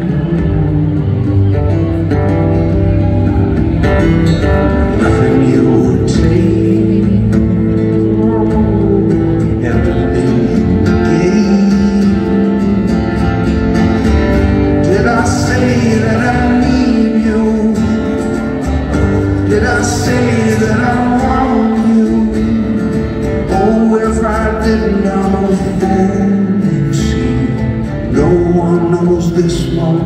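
Live solo acoustic guitar with a man singing over it, heard through a venue's PA from among the audience.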